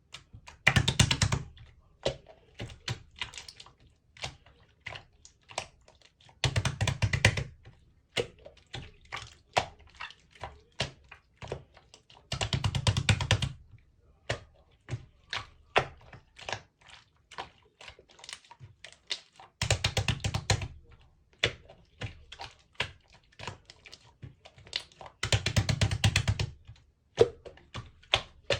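Translucent slime being squeezed and pressed by hand, giving quick sticky clicks and pops. About every six seconds there is a denser crackling stretch lasting about a second.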